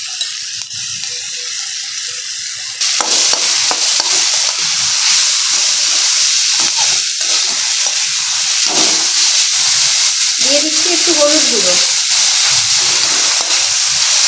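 Sliced onions and green chillies sizzling in hot oil in a kadai, stirred with a spatula that scrapes and clicks against the pan. The sizzle gets much louder about three seconds in.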